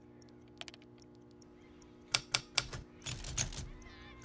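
Faint ticking, then three loud sharp clicks about two seconds in, followed by a quick clattering run of clicks, all over a low steady hum.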